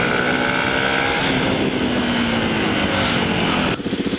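Yamaha WR125 single-cylinder motorcycle engine running under way, its pitch drifting slightly down, with heavy wind rush over the helmet camera. Near the end the wind rush drops away abruptly, leaving the engine's low, pulsing beat.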